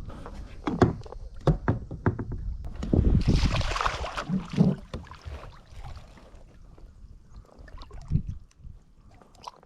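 Scattered knocks and clicks of gear being handled aboard a fishing kayak, with a louder rushing noise about three seconds in, then quieter toward the end.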